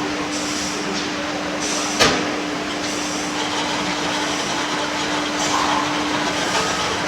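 Steady mechanical running noise with a constant hum, and one sharp knock about two seconds in.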